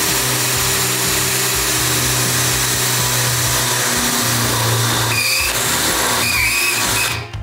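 Cordless drill boring a hole through a metal bracket, the motor running steadily under load. Its pitch drops slightly about four seconds in, and the drill stops just before the end.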